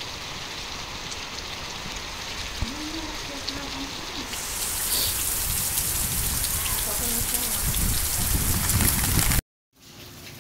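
Steady rain falling on trees and vegetation, an even hiss. About four seconds in it turns louder and hissier, a heavier downpour, with a low rumble building toward the end; the sound cuts out for a moment near the end and comes back as quieter rain and running water.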